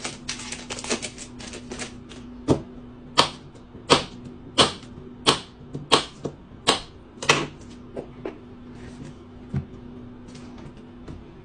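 Kitchen knife cutting a stick of butter into pats on a countertop: about eight sharp taps, roughly two-thirds of a second apart, as the blade meets the counter, after a run of quicker, lighter clicks at the start.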